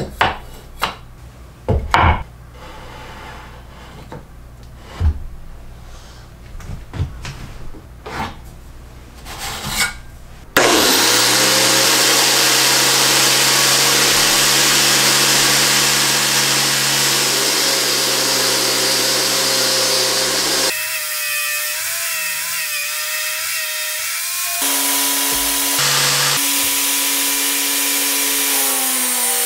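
A few sharp knocks and clicks of wooden jig parts being handled, then a Makita GA4033 angle grinder driving a sanding drum starts abruptly and runs steadily. Board edges are fed against the spinning drum.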